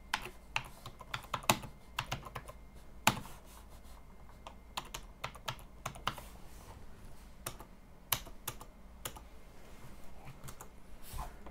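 Typing on a computer keyboard: irregular keystroke clicks in short runs with pauses between them.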